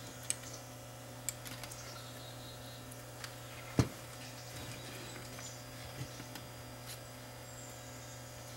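Scattered small clicks and taps from handling an opened camcorder on the bench, with one sharper knock a little under four seconds in, over a steady low electrical hum.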